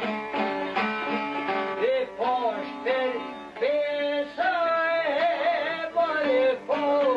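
Men singing an Albanian song with long, wavering held notes and ornamented turns, accompanied by a plucked string instrument.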